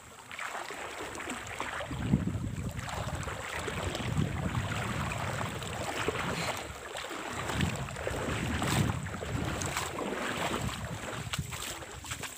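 Wind buffeting the microphone, a low uneven rumble, with a few sharp clicks.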